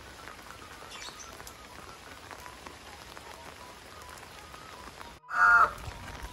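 Steady rain falling on foliage and wet ground, with the patter of scattered drops. About five seconds in, a brief loud pitched call cuts in.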